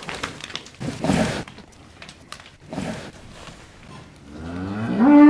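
Cows snuffling at silage, with a few short noisy breaths in the first few seconds, then one cow begins to moo near the end, the call rising in pitch and then held steady.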